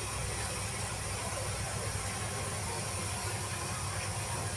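A steady low hum with an even hiss over it, unchanging, with no distinct knocks or other events.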